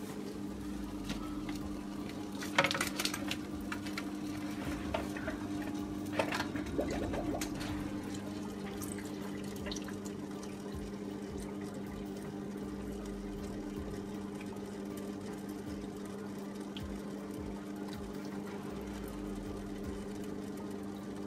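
Aquarium canister filter pump running with a steady hum while water gurgles through the reconnected Hydra Stream unit and its tubing as the unit is purged of air. A few knocks and splashy gurgles come about three seconds in and again around six to seven seconds, then it settles to the even hum and water flow.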